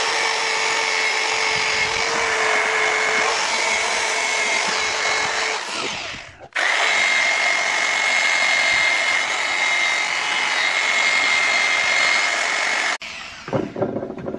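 Corded electric drill spinning a brass wire wheel against a hot cast iron mill part, brushing a thin layer of brass onto it (hot brassing), with a steady motor whine. It runs for about six seconds, stops for a moment, runs again for about six more and cuts off, followed by a few light knocks.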